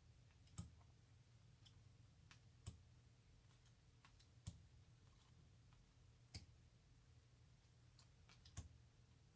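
Faint, sharp clicks of glossy tarot cards being flipped and laid down one at a time, about one every two seconds, over near silence.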